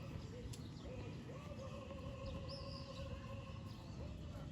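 Animal calls: several short pitched calls and one long held call lasting about two and a half seconds, over a low rumble.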